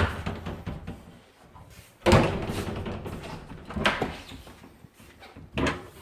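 Hallway closet doors being opened and shut: a loud knock about two seconds in, then two smaller knocks later on.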